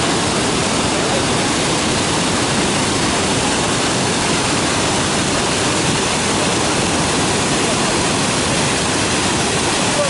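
A tall, multi-tiered waterfall cascading down rock: a loud, steady rush of falling water with no breaks.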